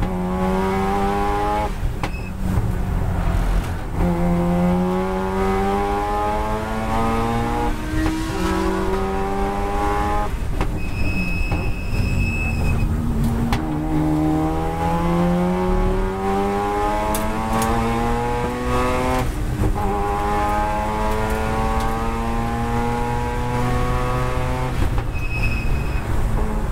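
Turbocharged Mazda RX-7 FD3S twin-rotor rotary engine heard from inside the race car's cockpit under hard acceleration. The revs climb in repeated runs, breaking off at each gear change, with a dip partway through as the car slows for a corner before pulling hard again.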